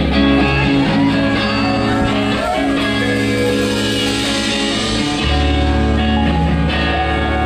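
A live rock band playing: electric guitars over bass and drums.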